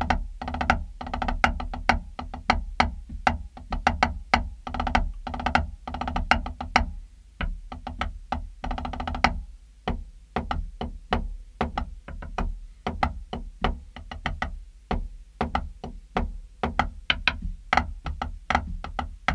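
Drumsticks on a multi-surface practice pad, played as an improvised solo: fast runs of strokes and accents in phrases with short gaps, some surfaces giving a short pitched ring.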